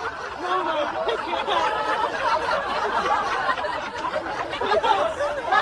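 People chuckling and laughing.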